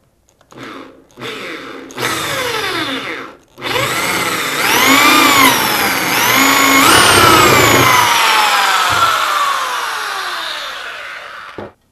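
Corded electric drill boring through an aluminium antenna tube: three short bursts of the trigger, then one long run in which the motor's pitch rises and falls as the bit bites, sliding slowly downward over the last few seconds before it stops.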